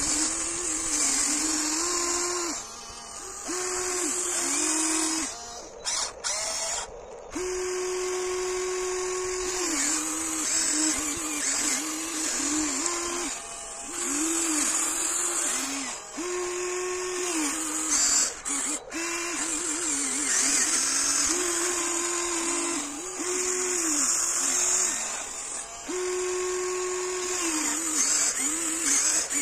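Huina 1594 RC excavator's small electric motors whining as it works, the pitch sagging and recovering again and again as the arm and bucket strain against load, with a couple of brief pauses.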